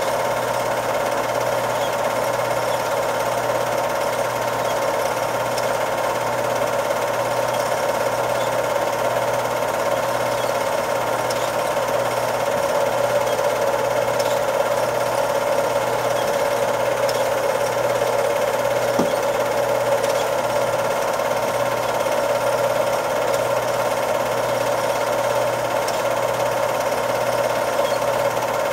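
Cine film projector running: the steady, rapid mechanical clatter of its film transport.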